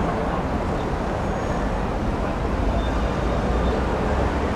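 Steady city road traffic noise: an even, unbroken rumble with most of its weight low down.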